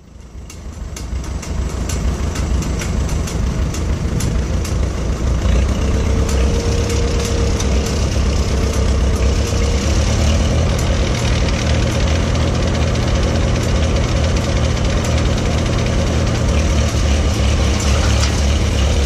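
1941 Farmall H tractor's four-cylinder engine running with a Gehl corn chopper-blower driven off its PTO shaft: a steady low engine rumble with a dense mechanical rattle. The sound builds up over the first two seconds, then holds steady.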